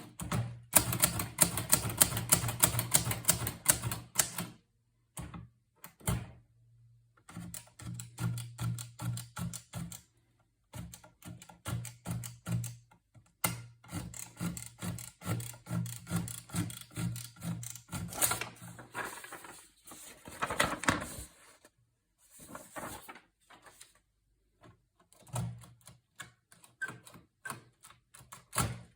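Hermes 3000 portable typewriter being typed on: quick runs of key strikes broken by short pauses.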